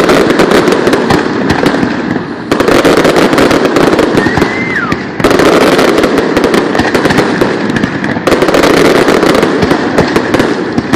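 Fireworks display: a dense, unbroken barrage of rapid crackling pops and bangs, loud throughout, its texture shifting abruptly every few seconds.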